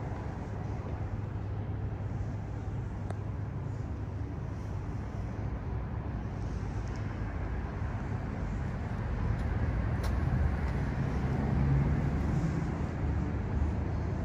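A vehicle engine running steadily, a low rumble that grows a little louder about ten seconds in.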